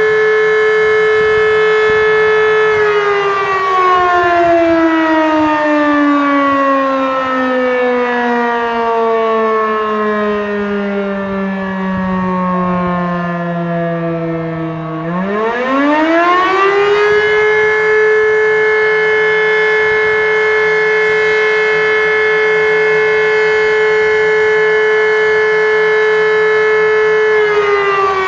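E57 electromechanical civil defense siren sounding the German fire alarm signal. A steady, loud siren tone falls in pitch as the rotor winds down for about twelve seconds. It then spins back up to full pitch in about two seconds and holds steady for about ten seconds. Near the end it starts winding down again.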